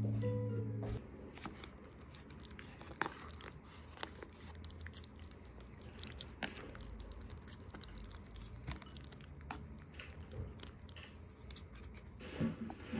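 A person eating: quiet chewing with scattered light clicks and taps, after a guitar tune ends about a second in.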